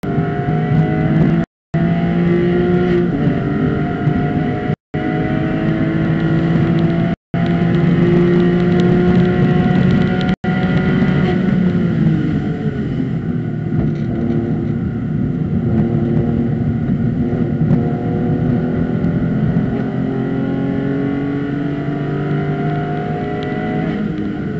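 Porsche race car engine heard from inside the cockpit, running hard at high revs on track, its pitch rising through the gears and falling once under braking before climbing again. The sound cuts out completely for an instant four times in the first half, where the footage is edited.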